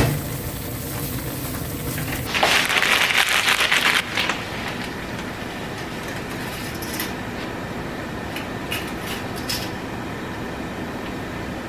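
Stovetop cooking: cream pasta sauce bubbling in a pan and a pot of water at a rolling boil, heard as a steady hiss that grows louder and crackly from about two and a half to four seconds in. A few light taps come later.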